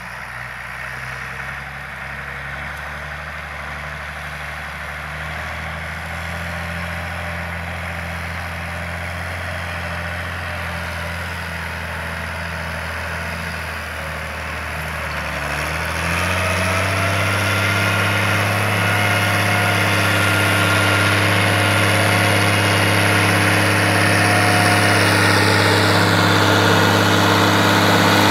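CBT 2600 tractor's turbocharged Mercedes-Benz 352 six-cylinder diesel running steadily under planting load, growing louder as the tractor approaches. About halfway through its note steps up and gets louder.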